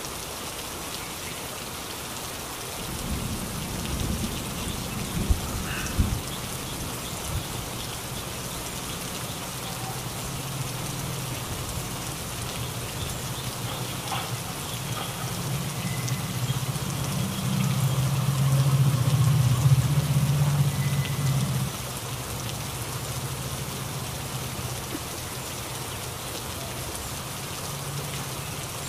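Steady hiss of heavy rain falling on leaves and surfaces. A low rumble with a few thumps comes in about three seconds in, and a louder low rumble swells past the middle, then cuts off sharply about seven seconds before the end.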